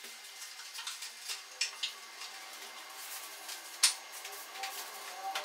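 Scattered light clicks, knocks and rustles of hands handling a wooden shelf frame with fabric panels and a strap, with one sharper click a little before four seconds in.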